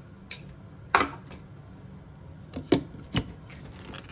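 A few sharp clicks and knocks, the loudest about a second in and a quick cluster near the end, as a steel mixer-grinder jar is handled and its clear plastic lid is fitted on.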